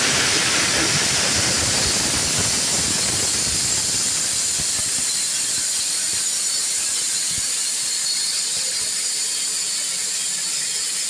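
Wood-Mizer LX250 band sawmill running, a steady hissing machine noise that slowly gets a little quieter.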